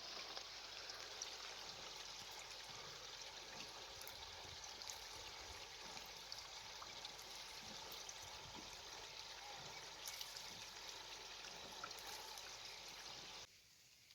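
Spring water running in a steady trickling rush, with faint scattered ticks, cutting off suddenly near the end.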